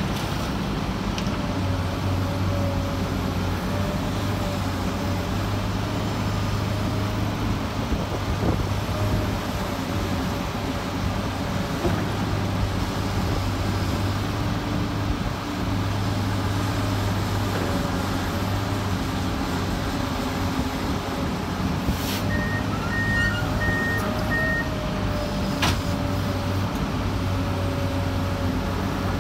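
Komatsu PC200LC-8 excavator's diesel engine running steadily as the machine works. Two sharp clanks come about three-quarters through, and between them a back-up alarm beeps about five times.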